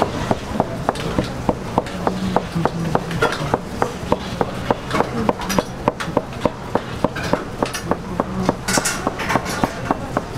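Large kitchen knife chopping folded, floured dough into hand-cut kalguksu noodles on a wooden board. It gives steady, quick knocks at about three strokes a second.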